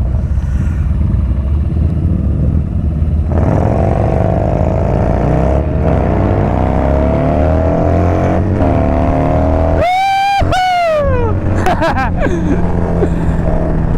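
Yamaha Bolt's air-cooled V-twin engine pulling hard through the gears, its pitch climbing and dropping in steps with each shift. About ten seconds in there is a sharp rev that cuts out briefly and then falls away as the throttle closes, over a steady rush of wind.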